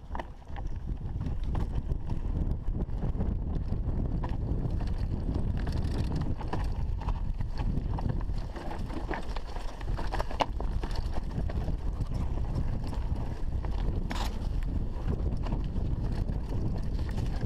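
Mountain bike descending a rocky trail: the tyres crunch over stones and the bike clatters and rattles with many small knocks, under heavy wind rumble on the microphone. The noise rises sharply about half a second in and stays loud, with one sharper knock near the end.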